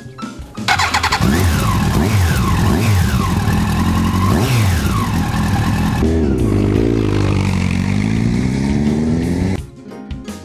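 Yamaha R1 sportbike's inline-four engine accelerating through the gears, its pitch climbing and dropping at each shift, then a longer, steadier climb. It starts about a second in and cuts off suddenly near the end.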